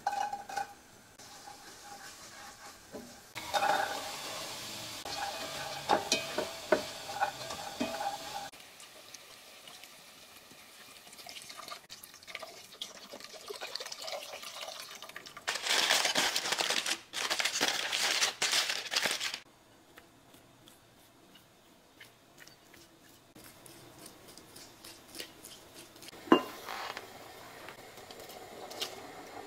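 Diced onion sizzling in melted butter in an enamelled cast-iron pot, with a spatula clicking against the pot as it is stirred. About 16 s in, chicken broth is poured into the pot, a loud splashing pour lasting a few seconds. A single sharp knock comes near the end.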